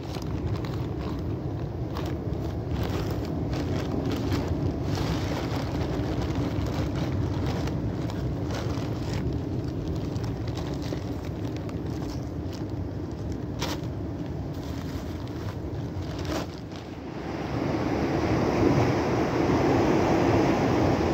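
A boat's motor running steadily under wind on the microphone and the wash of water, with a few sharp clicks and knocks. About three-quarters of the way through, the wind and water noise grows louder.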